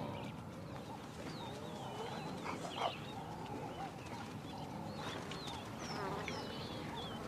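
African wild dogs calling with many high, overlapping twittering chirps, with one louder call a little under three seconds in.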